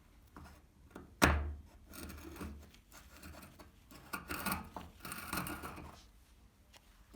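Workshop handling sounds: a sharp knock about a second in, as of a part set down hard on a bench, then irregular scraping and shuffling of parts being handled.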